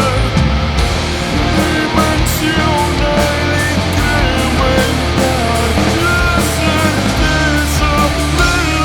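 Rock band playing at a steady loud level: drums, bass and guitars, with a melodic lead line gliding over them.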